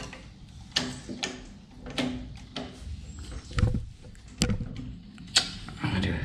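Sharp metal clicks and knocks as a small electric motor is pushed and seated by hand against a copier's sheet-metal frame, about six separate taps spread a second or so apart.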